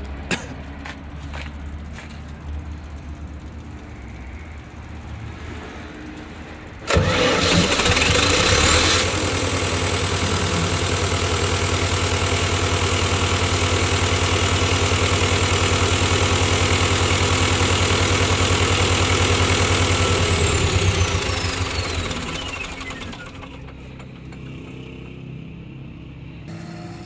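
Perkins four-cylinder turbo diesel generator engine cranked and firing up about seven seconds in, loudest for the first two seconds as it catches, then running steadily with a high, steady turbo whistle. About twenty seconds in it is shut off and runs down over two or three seconds, the whistle falling in pitch as it slows.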